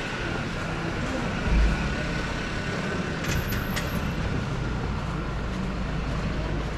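Street traffic noise with a heavy vehicle's engine rumbling close by. A low thump about a second and a half in, and a brief high squeal with a few clicks about three seconds in.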